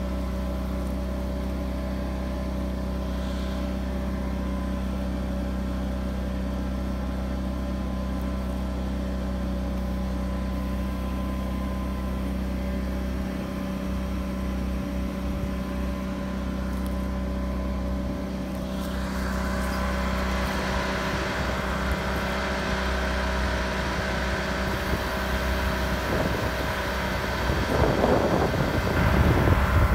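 Generator and air compressor running steadily, a constant engine hum. About two-thirds of the way through, a hiss of air and oxalic acid vapour blowing from the vaporizer nozzle sets in and grows louder near the end.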